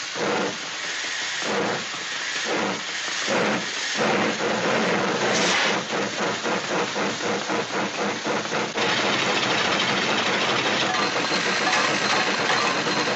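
Steam-train chugging and hissing, made as a cartoon sound effect. Slow puffs about once a second gather speed into a fast, steady rush of chuffs and steam.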